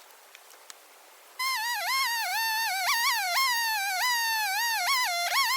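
Quiet for about a second and a half, then background music starts abruptly: a high, wavering lead tone that slides and dips in pitch, theremin-like.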